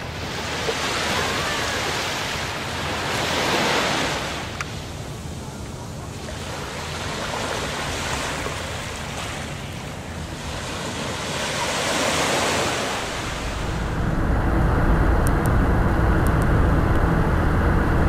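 Sea waves breaking and washing up a beach, each swell rising and falling every few seconds. About fourteen seconds in it gives way abruptly to the steady low rumble of road noise inside a moving car.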